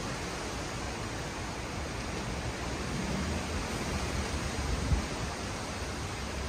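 Steady rushing of heavy thunderstorm rain pouring down, with gusting wind rumbling low on the microphone. There is a brief thump about two-thirds of the way through.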